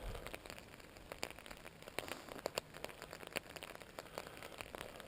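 Raindrops tapping on an umbrella overhead: a steady scatter of irregular, sharp little taps.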